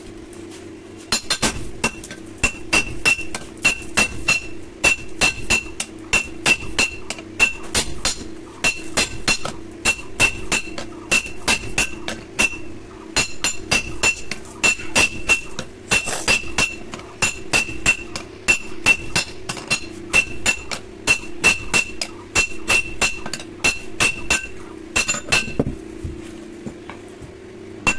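Hand hammer forging a red-hot steel blade on a railway-rail anvil: a long run of ringing metallic blows, about two to three a second, with a short pause midway, stopping a little before the end.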